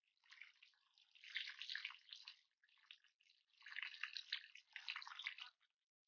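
Water running from a hose and splashing over a whole raw chicken as hands rub and rinse it, coming and going in two main spells.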